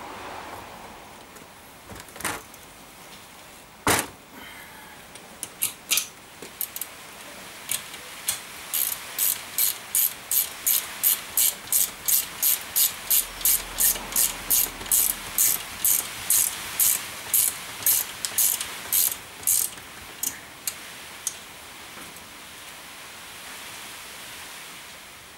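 Hand ratchet tool clicking in quick, regular strokes, about two a second, for roughly ten seconds, after a few scattered clicks and knocks.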